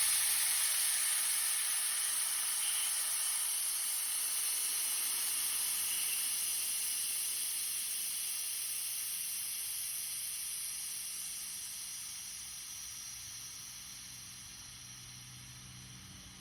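Compressed air hissing out of an air compressor's tank through its release valve: a steady high hiss that slowly fades as the tank pressure drops.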